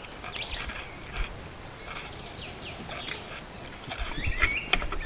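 High-pitched animal calls: a few short sliding chirps early on and in the middle, then a longer wavering call from about four seconds in, the loudest part. A few sharp clicks come between them.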